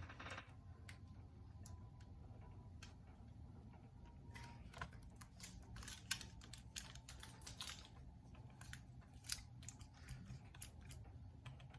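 Faint, irregular clicks and crackles of Scotch tape being pulled, torn and pressed onto window glass, thickest in the second half, over a low steady room rumble.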